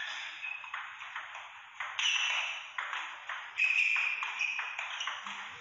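Table tennis rally: the celluloid ball clicking back and forth off the rubber bats and the table, a quick run of sharp ticks a third to half a second apart.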